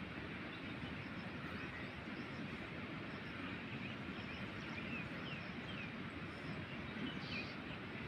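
Steady outdoor background noise with a few faint, short bird chirps partway through and near the end.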